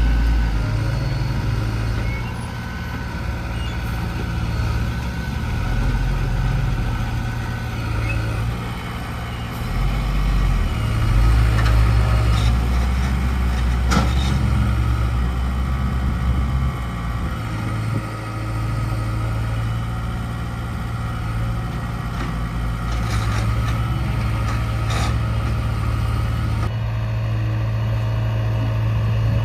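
Diesel engine of a JCB backhoe loader running and revving up and down under load while it digs and loads mud, with a few sharp metallic knocks.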